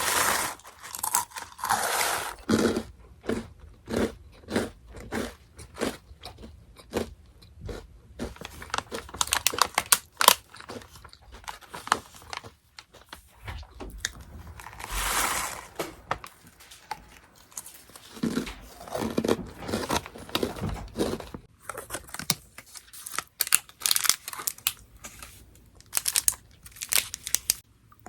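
Close-up crunching and chewing of Orion Mala Chicken Pop crackers, in a run of short, evenly spaced bites. Longer rustling stretches come in between, like the snack bag crinkling.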